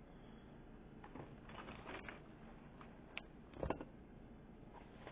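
Faint rustling and handling noises, with a sharp click a little past three seconds in and a short, louder rustle just after it.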